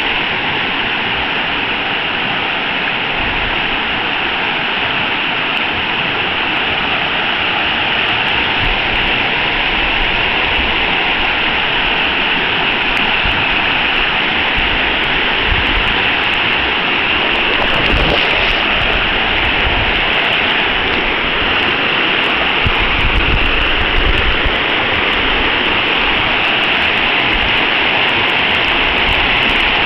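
Rapids of a small river rushing over rocks: a loud, steady rush of white water.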